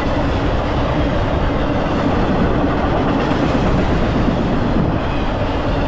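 Double-stack intermodal freight cars rolling past: a steady rumble of steel wheels on the rails with some clickety-clack.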